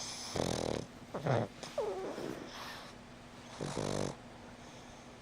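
Pug snoring in her sleep. A low buzzing snore comes about half a second in, then squeaky nasal sounds that glide up and down between one and two seconds, then another buzzing snore near four seconds.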